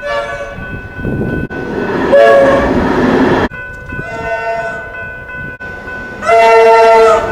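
Comeng suburban electric train horns sounding, in short spliced clips that cut abruptly from one to the next. The two loudest blasts come about two seconds in and about six seconds in, over train running noise.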